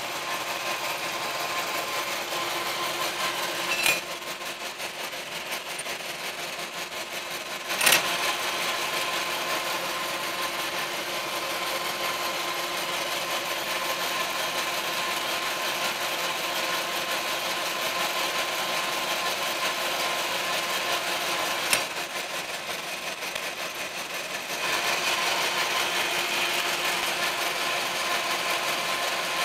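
Norton cylindrical grinder running under power: a steady mechanical hum with a faint whine, broken by a few sharp clicks, the loudest about 8 seconds in, and growing louder about 25 seconds in.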